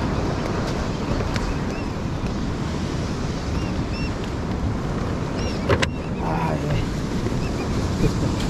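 Steady rush of ocean surf with wind on the microphone. Faint short high chirps come now and then, and a couple of sharp clicks sound a little past the middle.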